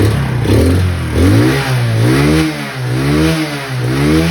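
Chinese Alfa-type moped's single-cylinder four-stroke engine revved up and down repeatedly, about once a second, as a test of the fuel-tank cap lock just padded with a rubber ring; no rattle from the lock stands out.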